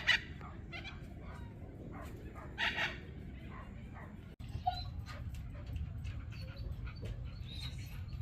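Loud honking calls of a large waterbird, one at the start and another about two and a half seconds later. After a break about four seconds in, small birds chirp more softly over a steady low rumble.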